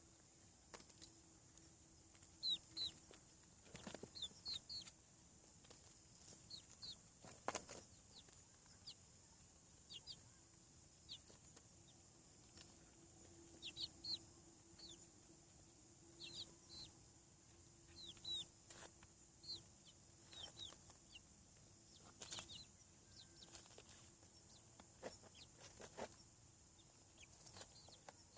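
Young chickens peeping: many short, high, falling cheeps come singly and in little clusters throughout. A few sharp clicks land among them.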